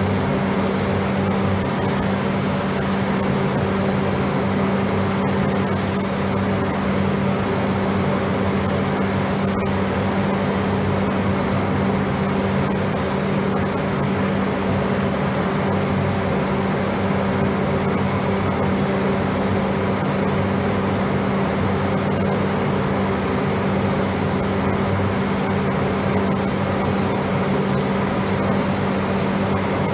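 Paint spray booth's ventilation fans running: a steady rush of air with a constant low hum.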